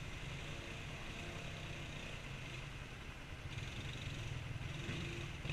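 ATV and side-by-side engines running steadily at low revs, getting a little louder about halfway through.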